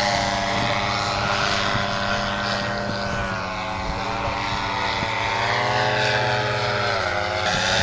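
Two-stroke Simonini Gold 200 engine and 125 cm propeller of a Fly Products Flash paramotor trike droning steadily in flight. Its pitch dips briefly about three seconds in and again near the end.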